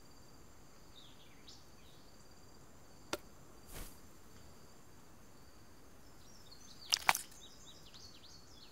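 Forest ambience: a steady high insect drone with short bird chirps. It is broken by a single sharp tick about three seconds in and a brief swish just after, then two quick sharp knocks about seven seconds in, followed by a flurry of chirps.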